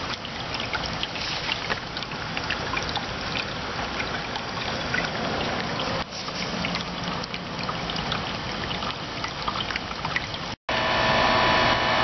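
Water from a garden hose splashing and trickling over the hot steel shell of a Bristol compressor, cooling it down after it tripped its internal thermal overload. Near the end, after a sudden break, the heat pump's outdoor unit running with a steady hum, compressor and fan back on.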